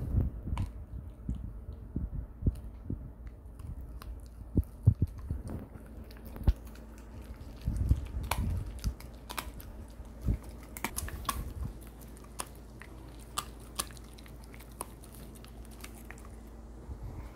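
Shiba Inu chewing and biting a large dried-meat chew treat: irregular crunches and clicks of teeth.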